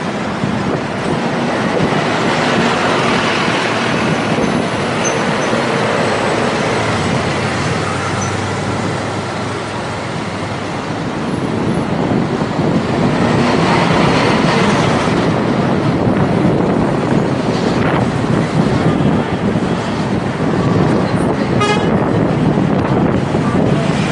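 Road traffic and the bus's own engine heard from the open top deck of a double-decker sightseeing bus: a steady, loud rush of city traffic that grows louder about halfway through.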